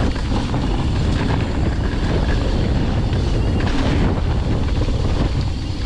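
Wind rushing over the action-camera microphone and steady tyre rumble as a Santa Cruz Nomad full-suspension mountain bike rolls fast down a dirt trail, with a few small knocks from the bike.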